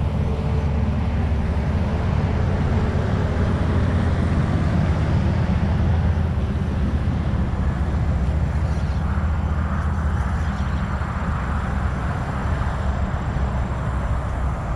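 Steady rumble of highway traffic.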